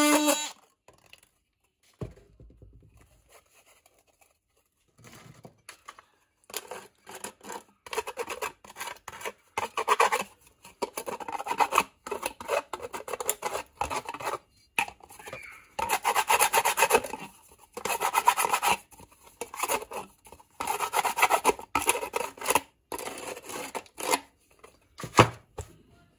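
A grey abrasive stone rubbed back and forth over the freshly cut edge of a plastic bucket lid's hole, deburring it: runs of short scratchy strokes, irregular, with pauses between them. The oscillating multi-tool's buzz cuts off right at the start, and there is a single knock near the end.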